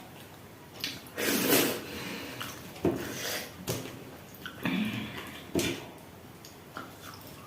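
Close-miked mukbang eating sounds: a person eating goat meat and dhido, with mouth noises of chewing and sucking and a few sharp clicks. The loudest sound comes about a second in.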